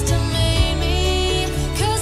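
Music: an instrumental passage of a song, with sustained melody lines over a steady accompaniment.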